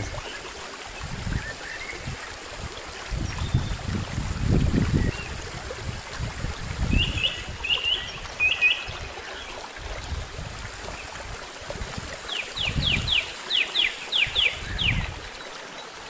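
Small, clear stream babbling steadily over stones, with a bird calling: three short chirps about seven seconds in and a quick run of about ten falling notes near the end. Irregular low rumbles on the microphone come and go.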